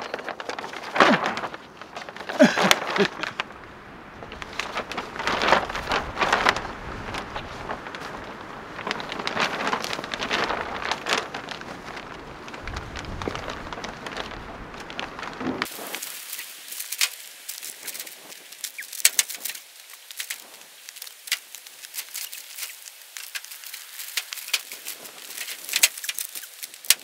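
Plastic sheeting crinkling and rustling as it is spread over a firewood stack, in irregular sharp crackles. About 16 s in, the low part of the sound cuts out suddenly and only thinner, high crackling continues.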